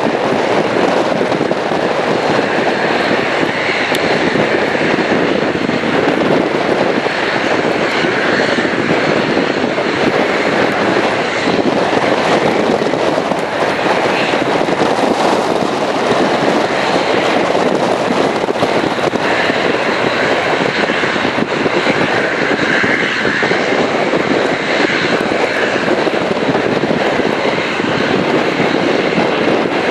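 Twin-engine turboprop airliner's engines running as it approaches, mixed with steady wind noise on the microphone.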